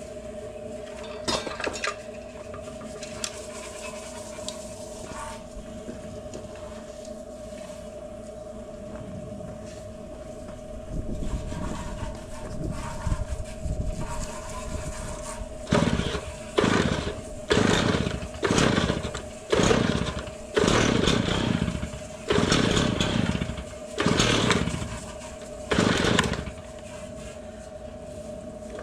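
A small motor or engine blipped in short bursts, about one a second, each burst starting sharply and falling away in pitch, over a steady hum.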